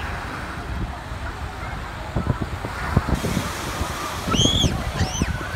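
Busy beach ambience: wind buffeting the microphone over breaking surf and a crowd of distant voices, with two short high-pitched squeals about four and five seconds in.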